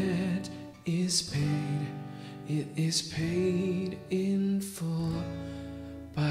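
A man singing a slow song with held notes while playing guitar.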